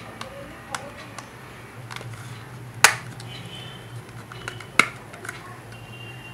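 Plastic back cover of a LYF Flame 8 smartphone being prised off by hand: a string of sharp clicks as its clips snap loose, the loudest about three seconds in. A faint low hum runs underneath.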